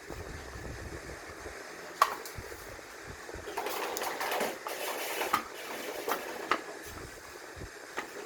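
Tools and metal parts being handled. A sharp click about two seconds in, then a stretch of rustling and a few lighter clicks and clinks.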